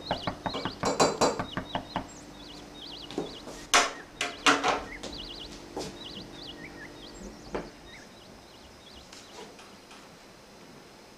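A teaspoon stirring and clinking against a ceramic mug in a quick run of light clinks, followed by a couple of louder knocks about four seconds in, then a few fainter handling clicks.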